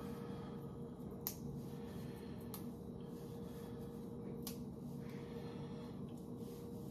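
Three small sharp snaps, a second or two apart, of watercress stems being broken off by hand, over a faint steady hum.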